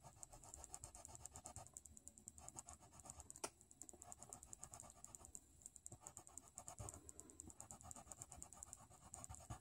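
Faint, rapid scratching of a sharp coloured-pencil tip stroking across paper, in short runs with brief pauses between them. A single sharp tick comes about three and a half seconds in.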